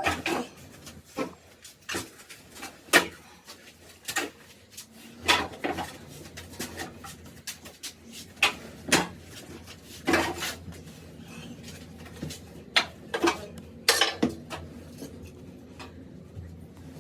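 Irregular metallic clinks, knocks and short scrapes of hand tools being handled and worked, with a faint low hum underneath from about five seconds in.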